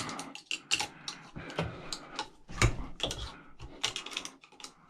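Scrap metal pieces being handled and sorted by hand: irregular clinks, taps and knocks of metal parts, with a few louder knocks.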